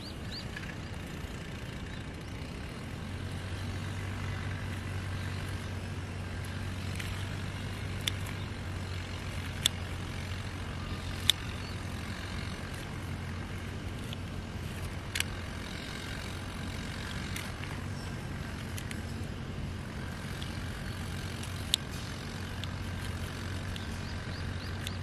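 Pruning shears snipping through garlic roots: a few sharp, separate snips spread over the stretch. Behind them a distant engine runs with a steady low hum.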